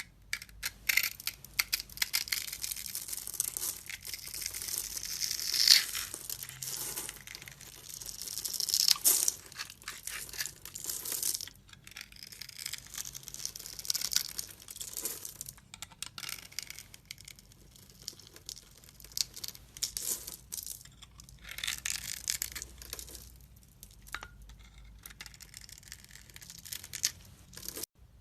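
Knife carving into a bar of dry soap: crisp crackling and scraping in several long strokes, with short pauses between them.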